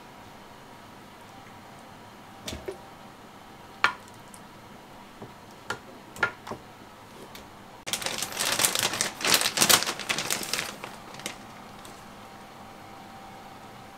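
A few scattered light knocks and clicks, then about three seconds of packaging crinkling and crackling that stops abruptly.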